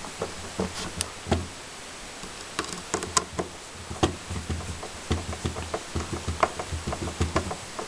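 Screwdriver turning a screw into the sheet-metal cover plate of a slot-machine card reel: irregular small clicks and knocks of metal on metal, several a second.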